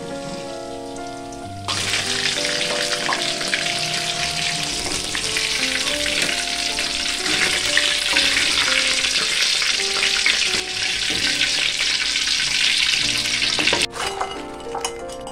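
Battered stuffed tofu (tahu isi) deep-frying in hot oil in a wok: a loud, steady sizzle that comes in about two seconds in and cuts off sharply near the end, followed by a few light clicks.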